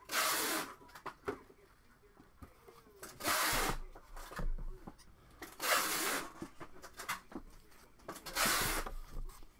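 Four short bursts of handling noise from cardboard boxes of trading cards being picked up and moved. Each lasts about half a second, with two to three seconds between them.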